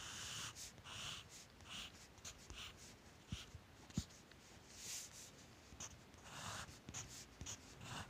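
Graphite pencil scratching on sketchbook paper in a series of short, irregular strokes, with a sharp tap about four seconds in.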